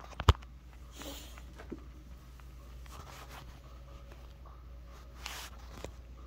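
Phone handling noise: a sharp knock near the start, then brief rustling and scattered small clicks as the phone rubs against fabric, over a low steady hum.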